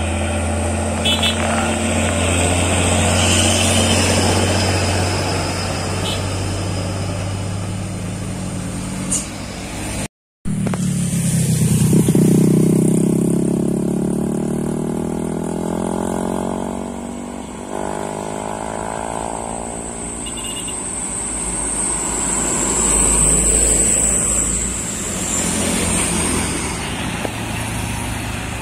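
Diesel engine of a loaded Hino truck labouring up a steep hill with a steady low drone. After a sudden break about ten seconds in, a motorcycle passes with its engine pitch falling away, and more truck engines are heard climbing.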